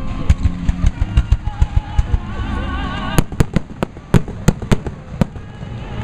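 Fireworks exploding: a rapid string of bangs, then a series of separate loud sharp cracks.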